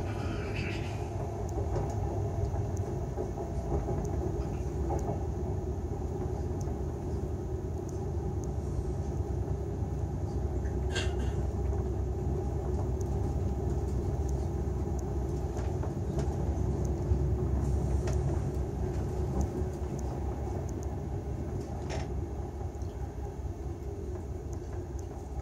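Steady low rumble of a Railjet passenger train running along the track, heard from inside the carriage. A few brief sharp clicks or squeaks stand out, at the start, about halfway through and near the end.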